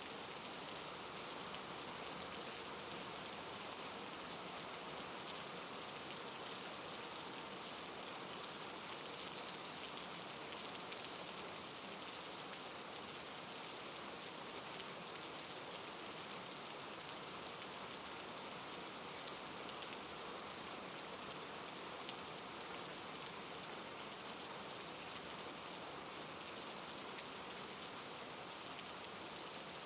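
Steady soft rain falling, an even hiss with fine scattered drop ticks and no change in intensity.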